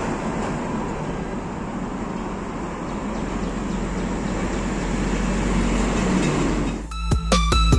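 Small four-stroke Honda GX35 brush cutter engine running steadily with a noisy drone. About seven seconds in it gives way to electronic music with a heavy bass.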